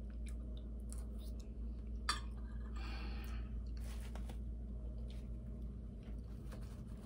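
A person chewing a soft mouthful of baked potato, with faint wet mouth sounds and a single sharp click about two seconds in.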